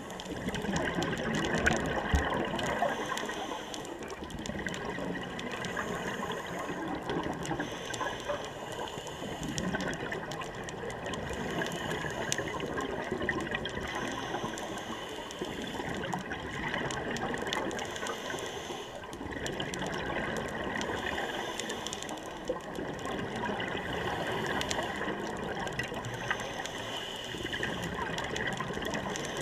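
Muffled underwater rushing of scuba regulator exhaust bubbles and breathing, heard through a waterproof camera housing, rising and easing every few seconds with the breaths.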